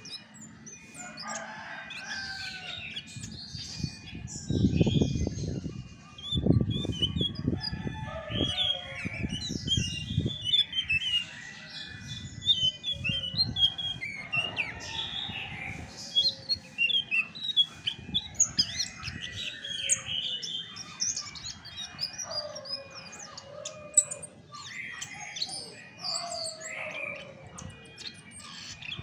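Chestnut-backed thrush singing a long, varied song of rapid chirps and whistled phrases. Bouts of low rustling noise come in about four seconds in and again from about six to ten seconds.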